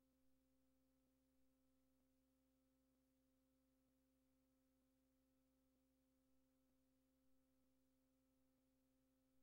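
Near silence: only a faint, steady low hum with tape or line hiss.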